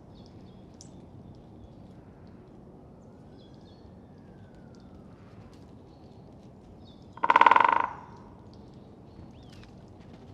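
Great spotted woodpecker drumming on an oak trunk: one fast roll of strikes lasting under a second, about seven seconds in.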